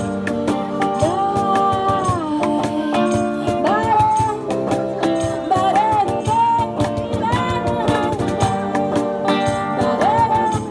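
Live acoustic street band playing: strummed acoustic guitars and a quick steady beat of shaken hand percussion under a lead melody that slides between notes.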